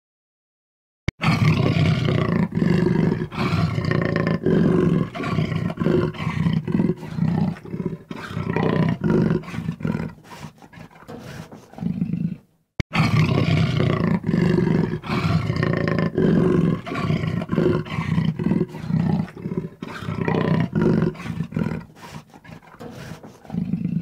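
A big cat roaring and growling in a long run of deep, pulsing calls, which stops briefly about halfway through and then starts again.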